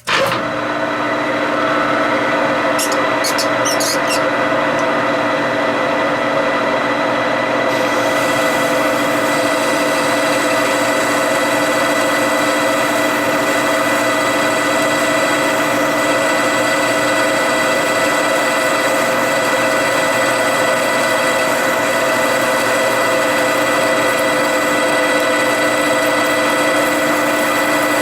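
Metal lathe starting up and running steadily, its gearing giving a whine of several steady tones, with a few brief high clicks a few seconds in.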